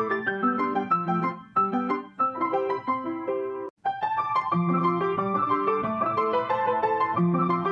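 Piano music: a steady run of melodic notes with a lower accompaniment, with a brief break in the sound about four seconds in.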